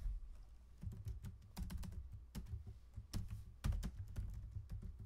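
Typing on a computer keyboard: a run of irregular key clicks with short pauses between them.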